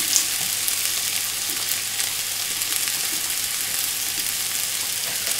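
Diced shallots and ginger sizzling steadily in sesame oil in a hot pan.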